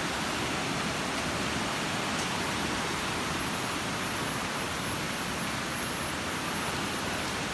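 Steady, even rush of water from Mae Sa Waterfall's cascade.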